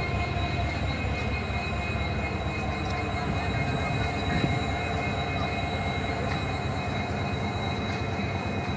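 Diesel locomotive engine running steadily, a low rumble with a high whine on top.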